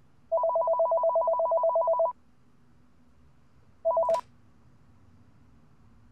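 White corded desk telephone ringing with an electronic two-tone warble: one ring of about two seconds, then a second ring cut short after a fraction of a second by a click as the handset is picked up.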